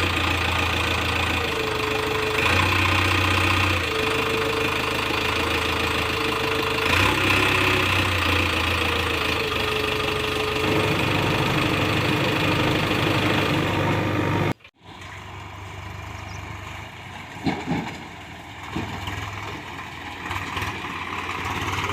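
Heavy diesel machinery engine running loud and steady, with a tone that steps up and down in pitch. It cuts off abruptly about two-thirds of the way through, then continues as a quieter engine sound with a few brief louder knocks.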